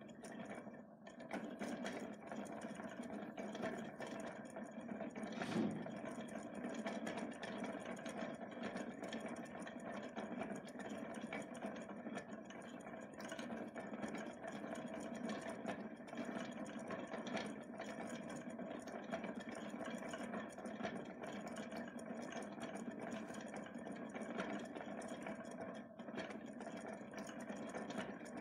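Hand-cranked zaguri, a Japanese thread winder with a cast-iron flywheel, whirring steadily as its wooden frame spins and takes up thread. There is a single soft low bump about five seconds in.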